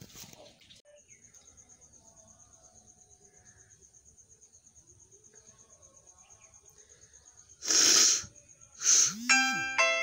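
A person blowing their nose hard into a tissue, once for about half a second roughly eight seconds in and again briefly about a second later. Near the end an electronic doorbell-like chime rings, with a low falling sweep under it.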